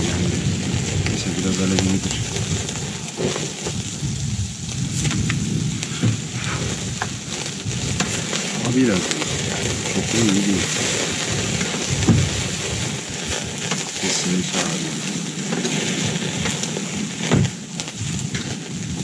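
Food sizzling over charcoal on a grill, a steady hiss with scattered small crackles and a few sharper clicks or knocks.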